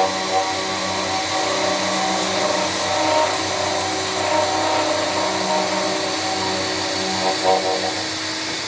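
CNC machine running through a cut: a steady mechanical hum and hiss with whining tones that come and go, briefly louder near the end.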